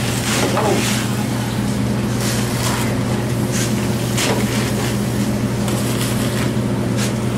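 A steady low mechanical hum, like a running motor, with a few short hissy clicks and rustles on top.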